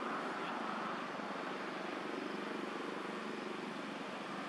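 Steady ambient background noise: an even hiss and hum with no distinct events.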